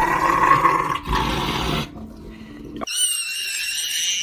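A Rottweiler growling loudly, with a short break about a second in, stopping about two seconds in. Near the end comes a high-pitched squeal.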